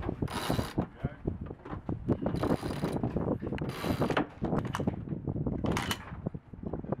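Sailboat cockpit winch clicking in quick runs as a line is winched in to hoist a sail, with four louder bursts spread through it.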